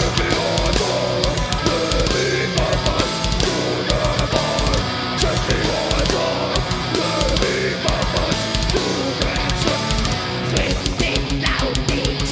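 Groove metal band playing live: heavily distorted electric guitars, bass and drums, with rapid kick-drum beats that grow denser near the end.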